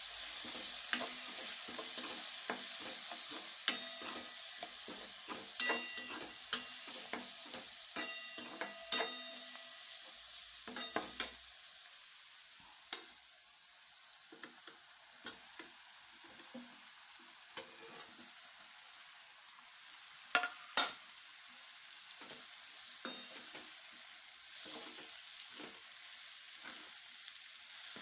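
Food sizzling in hot oil in a metal pan while a metal spatula stirs it, clinking and ringing against the pan many times. The sizzle is louder in the first half and there are two sharper knocks about two-thirds of the way through.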